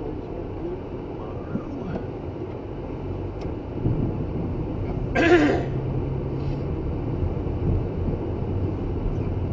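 Steady engine and road rumble of a snow-plow vehicle, heard from the dash camera inside the cab. About five seconds in comes a short, loud throat-clearing or cough-like vocal sound.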